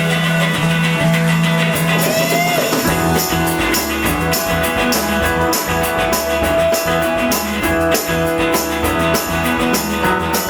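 Live rock band playing a song's instrumental intro: guitar with a held low note at first, then drums and bass join about three seconds in and the full band plays on.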